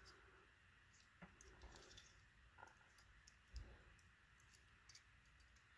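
A few faint clicks and light taps from a small diecast model truck being handled and turned over in the hands, over near silence.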